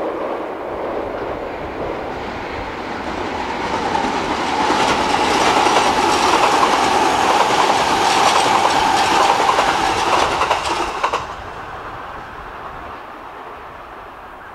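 E233 series electric commuter train crossing a steel railway bridge: the rumble builds, then the train passes loudly with wheels clacking over the rails and a steady hum, before the sound drops away sharply about eleven seconds in and fades.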